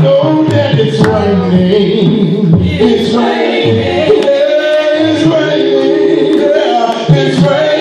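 A man singing a gospel song into a microphone, over a beat of sharp percussive strikes.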